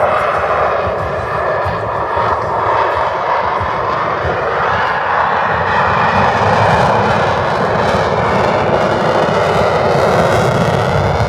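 Loud, steady jet roar from the twin engines of an F/A-18 Super Hornet flying a demonstration, growing slightly louder in the second half.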